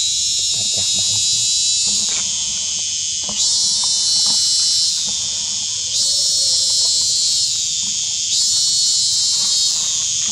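Loud, high buzzing chorus of cicadas, swelling and easing about every two and a half seconds.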